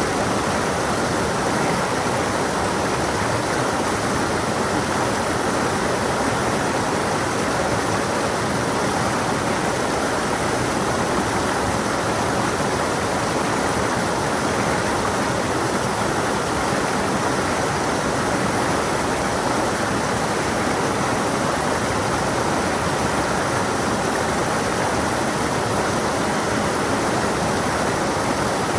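A stream running steadily over rocks, a continuous even rush of flowing water.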